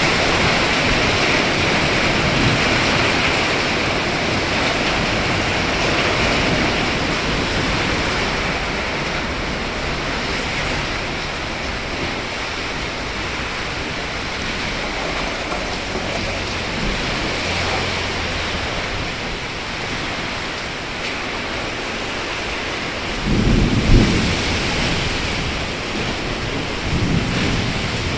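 Heavy rain pouring steadily in a storm, with wind. Near the end a brief louder low rumble swells up and fades.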